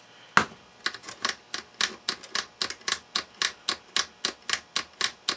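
A single knock, then a rotary selector switch on a Heathkit IT-18 transistor checker clicking through its detent positions at an even pace of about four clicks a second. The switch is being worked back and forth to wipe its tarnished contacts clean after a spray of contact cleaner.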